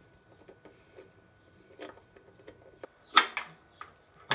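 Small metal engine parts and hand tools being handled on a workbench: scattered light clicks and taps, with a louder clack about three seconds in and another near the end.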